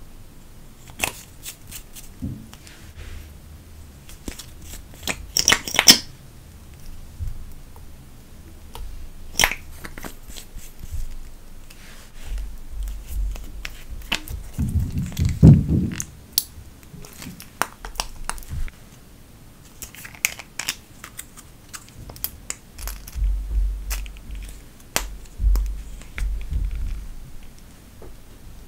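Plastic makeup tubes, caps and bottles being handled on a hard countertop: scattered sharp clicks and taps as caps are pulled off and tubes squeezed, with a dull thump about halfway through.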